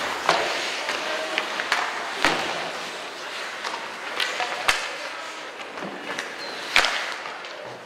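Ice hockey play: skate blades scraping and hissing on the ice, with four sharp clacks of sticks and puck spread about two seconds apart.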